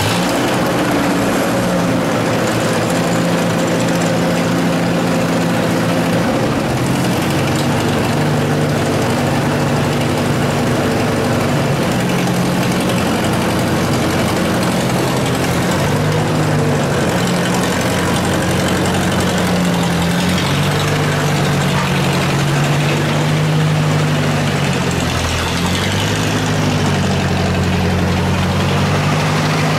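1956 Ford tractor engine running steadily, its pitch shifting up and down a few times as the throttle changes.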